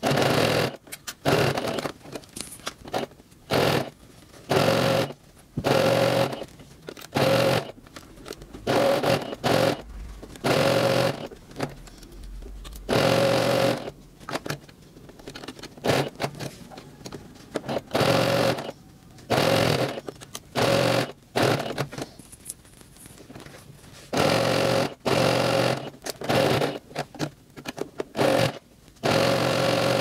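Singer electric sewing machine stitching a seam in short runs of about a second, stopping and starting over and over with a steady hum in each run.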